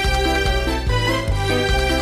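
Upbeat background music with a bouncing bass line and a steady beat, about two to three bass notes a second, in a Latin, salsa-like style.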